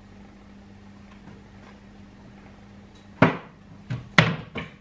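Off-camera kitchen cupboard and glass syrup bottle being handled: a handful of sharp knocks and clatters in the last two seconds, over a faint steady hum.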